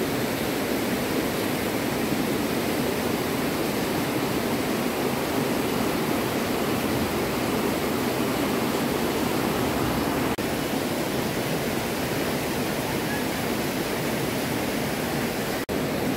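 Rushing whitewater of a shallow, boulder-strewn river: a steady, dense roar of rapids. The sound cuts out for an instant twice in the second half.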